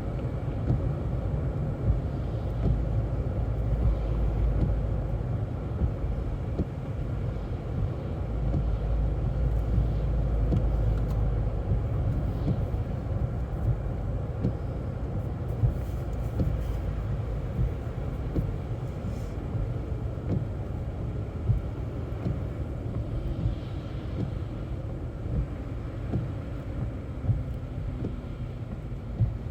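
Car interior while driving on a slippery, snow-covered road: a steady low rumble of engine and tyres, with scattered light knocks.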